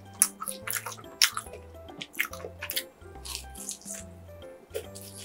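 Close-miked eating of a twisted bread pastry: several sharp bites and crunches with chewing in between, over background music with a steady low bass line.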